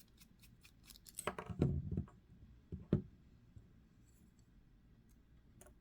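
Small metal knife parts clicking and tapping as they are handled and taken out during disassembly: a quick run of light clicks at the start, a cluster about a second in, and a single sharper click about three seconds in.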